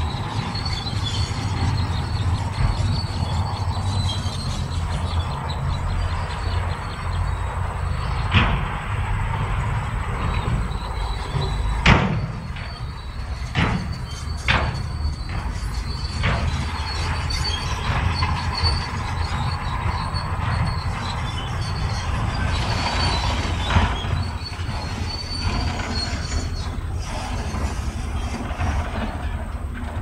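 Shantui DH17C2 crawler bulldozer working: its diesel engine runs steadily under load while the steel tracks squeal and clank. A handful of sharp knocks of steel and rock come through, the loudest about twelve seconds in.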